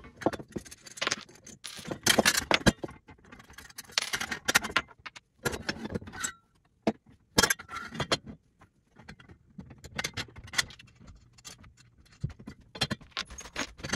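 Metal parts clinking and rattling in irregular bursts: bolts and washers taken out by hand and the steel tubes of a ceiling TV bracket's telescoping pole pulled apart and set down, as the pole is shortened by removing its middle tube.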